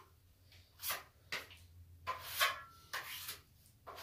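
Steel taping knife scraping wet plaster (joint compound) across a plastering hawk, several short separate strokes as the mud is worked and loaded onto the blade.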